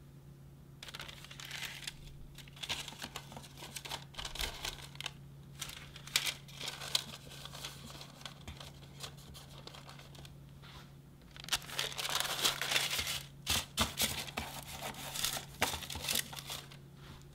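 Parchment paper crinkling and rustling as hands press and fold it into a round metal cake pan, in irregular bursts that are loudest in the last few seconds.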